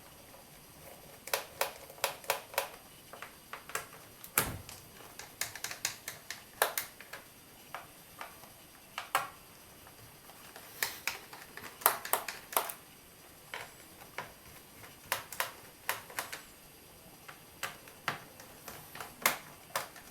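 Irregular small clicks and taps of a tiny screwdriver removing the screws from the underside of a laptop, with the screws and the laptop's plastic case handled on a desk. One duller knock comes about four seconds in.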